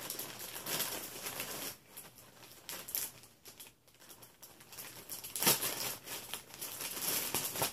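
Shipping package being cut and torn open, its wrapping crinkling and rustling in irregular bursts, with one sharp rip about five and a half seconds in.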